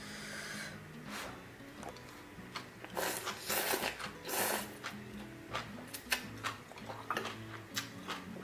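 Two loud slurps of a chopstick mouthful of spicy seafood stew about three and four seconds in, then quieter chewing and small clicks, over soft background music.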